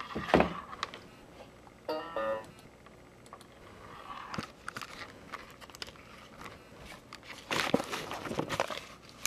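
Handling noise: a knock about half a second in, a brief pitched sound near two seconds, and a spell of rustling and clicking near the end.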